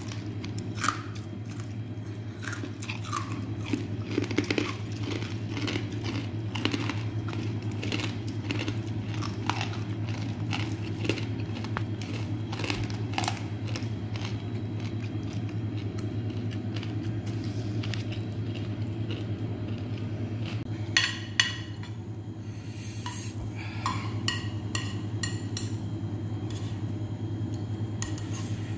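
Close-up chewing and crunching of green papaya salad with crisp pork rinds, over a steady low hum. A metal spoon scrapes and clinks on the plate, with a few sharper clinks about three-quarters of the way through.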